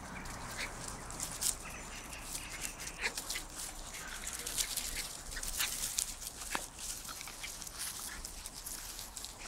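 Norwich Terrier puppies playing with an adult dog on grass and dry leaves: short scattered dog noises mixed with many small rustles and clicks.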